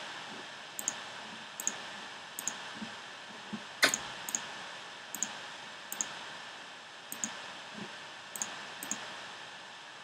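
Computer mouse clicks, about a dozen short sharp clicks spread unevenly, the loudest about four seconds in, over a steady faint hiss.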